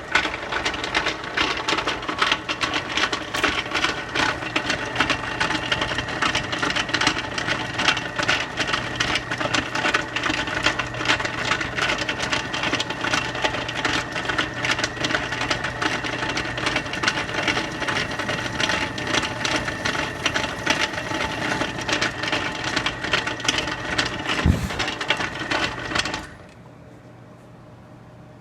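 Old Craftsman 150 drill press running while drilling into treated lumber, with a steady motor hum under a dense, fast rattle: the running noise the owner sees as a problem with the machine. A brief low thump comes shortly before the machine shuts off suddenly near the end.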